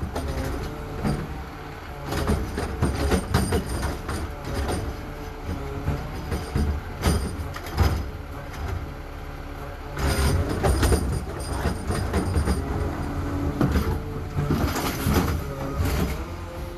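Garbage truck at work: diesel engine running under a stream of metal clanks and bangs in bursts, with high metallic squeals over some of them. Near the end, a pitched whine rises as the truck revs or its hydraulics work.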